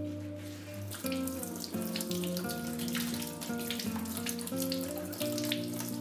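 Water running from a kitchen tap and splashing over a potato being rubbed clean in the hands, starting about a second in, over background guitar music.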